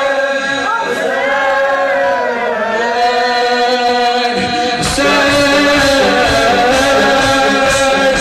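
Male voice singing a Shia mourning chant (noha) in long, sliding held lines. About five seconds in, fuller accompaniment with a steady beat comes in and the sound gets a little louder.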